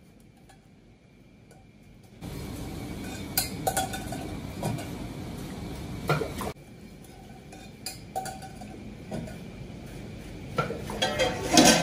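Kitchen clatter: metal pots and ceramic ramen bowls clinking and knocking, over steady kitchen background noise that starts about two seconds in. The loudest run of clinks comes near the end.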